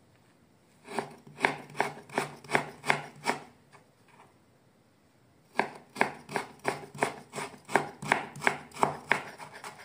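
Kitchen knife chopping fresh ginger on a wooden cutting board: a run of sharp strokes starting about a second in, a pause of about two seconds, then a longer, quicker run at about four strokes a second.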